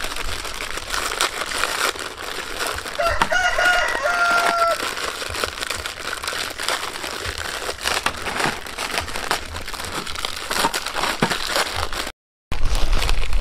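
Plastic instant-noodle packets being torn open and crinkled by hand, a steady run of small crackles. A rooster crows once about three seconds in, lasting under two seconds.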